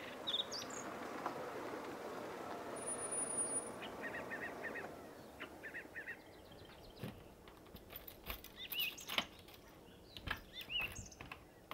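A car pulls up and stops, its engine and tyre noise fading out about five seconds in, while small birds chirp. Then a run of sharp clicks and knocks as a key is worked in a door lock and the handle turned, with birds calling.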